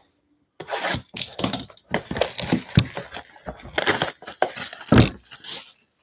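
Gloved hands handling a Panini Contenders football mega box: a run of irregular crinkling and scraping of its cardboard and wrapping, starting about half a second in and stopping just before the end.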